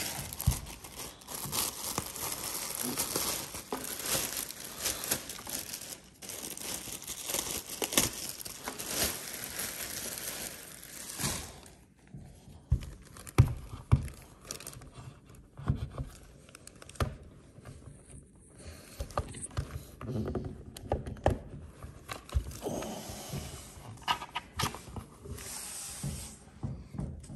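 Plastic protective wrapping crinkling and rustling as it is pulled off a figure for about the first eleven seconds. Then come sparser knocks and bumps as the figure is handled and set on its base, with more rustling near the end.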